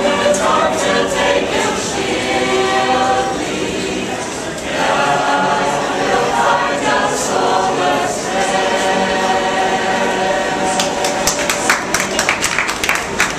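Mixed choir of Mennonite men and women singing a hymn a cappella, in sustained chords with a short breath between phrases about four seconds in. Near the end the singing gives way to a patter of clapping.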